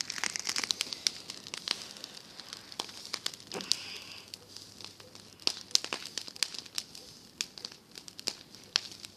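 Small bonfire of dry grass and straw burning, crackling with many irregular sharp pops over a faint steady hiss.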